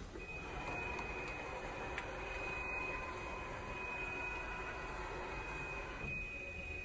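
Steady high-pitched tone over a whirring rush from the BMW Vision Next 100 concept car as its steering wheel extends out of the dashboard for driving mode; the rush stops about six seconds in while the tone carries on.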